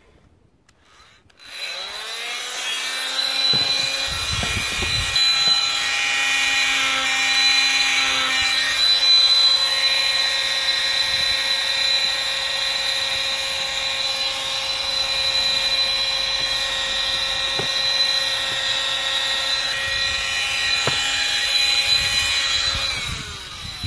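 Corded oscillating multi-tool starting up about a second and a half in, its whine rising quickly to a steady high buzz, grinding out the cracks in an old plastic steering wheel rim. It runs steadily and stops just before the end.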